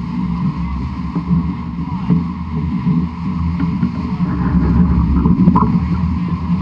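Wind buffeting the microphone in a steady, choppy rumble, with water rushing past the hull of a fast-sailing 18-foot skiff.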